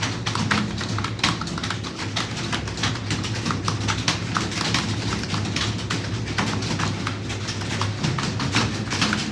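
Computer keyboard being typed on continuously, quick irregular key clicks several a second, over a steady low hum.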